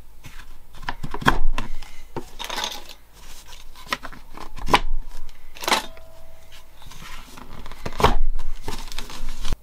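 A plastic Q-Snap embroidery frame being fitted over cross-stitch fabric: the fabric rustles as it is handled, and there are several sharp plastic clicks and knocks as the tubes are set down and snapped into place.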